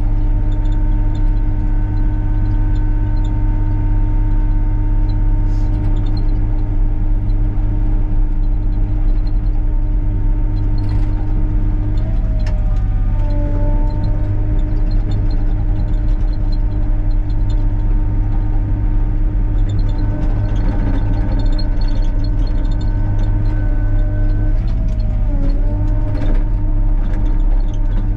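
Excavator's diesel engine running steadily under working load, with a steady whine over the low drone. The whine's pitch dips and wavers briefly twice, about twelve seconds in and again about twenty-five seconds in.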